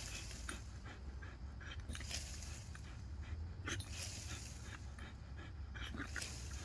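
Pit bull panting in quick, short breaths over a steady low hum.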